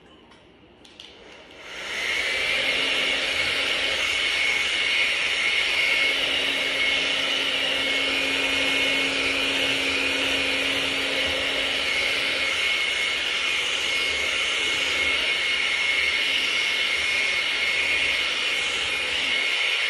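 Hair dryer switched on about two seconds in and running steadily: a rush of motor and fan noise with a high whine.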